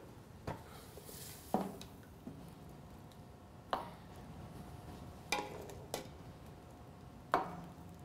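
Metal ladle clinking against a stockpot and a china soup plate as soup is ladled out: about six sharp, separate clinks, a few of them ringing briefly.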